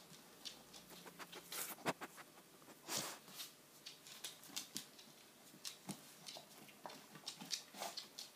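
A cocker spaniel–pug mix dog sniffing and snuffling, faint short irregular sniffs mixed with small clicks.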